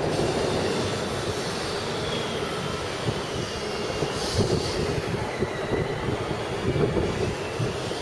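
A train running on rails, a steady rumble with faint high wheel-squeal tones that slide slowly in pitch.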